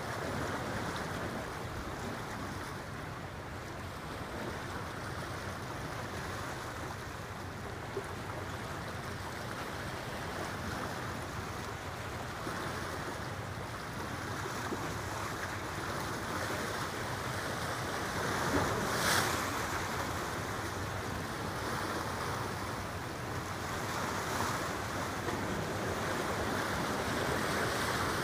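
Steady rush of wind and moving water at the river's edge, with wind buffeting the microphone. A brief louder gust comes about two-thirds of the way through.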